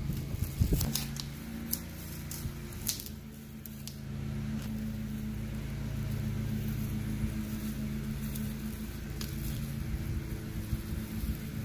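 Masking tape being peeled off a painted leather shoe, with crackly rips, over a steady low hum that cuts off abruptly at the end.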